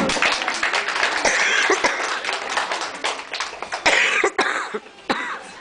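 Applause: many hands clapping unevenly after a children's song, with children's voices over it.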